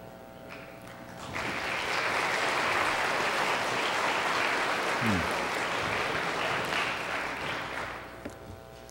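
Congregation applauding, starting about a second in and dying away near the end.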